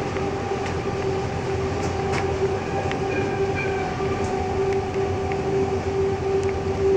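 Running noise of a diesel-hauled passenger train heard from inside the moving coach: a steady rumbling drone with a constant hum tone running through it, and the wheels clicking over rail joints now and then.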